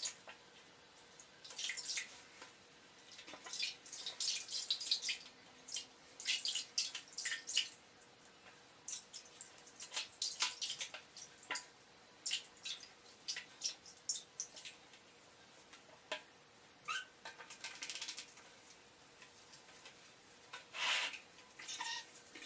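Water splashing and pouring in short, irregular bursts as a cat is washed in a small bathroom, sped up four times.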